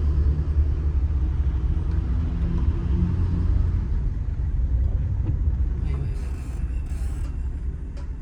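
Low, steady vehicle rumble from traffic on the road, easing off after about five seconds, with two short hisses near the end.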